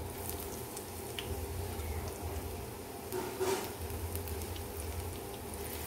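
Besan-battered onion rings frying in hot oil in a pan: a steady faint sizzle with scattered small crackles over a low hum, and a brief louder burst about three and a half seconds in.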